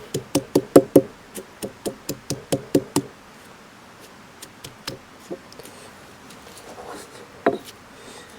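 Knife chopping on a cutting board: quick even strokes, about four a second, for some three seconds, then a few scattered taps.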